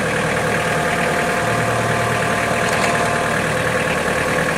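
Tractor engine running steadily, its pitch holding even.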